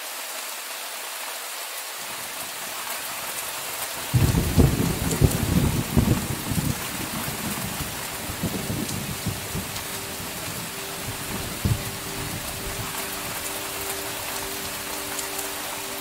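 Steady heavy rain with a clap of thunder about four seconds in that rumbles low and dies away over a few seconds. Soft music comes in under the rain in the second half.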